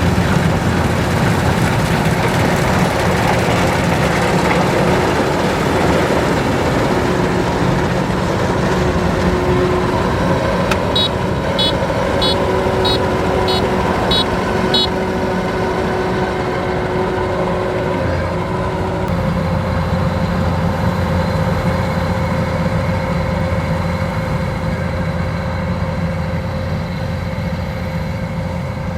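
Kubota DC-93 rice combine harvester running steadily, its diesel engine humming under continuous machine noise. Around the middle, a run of about seven short high beeps sounds, roughly two a second.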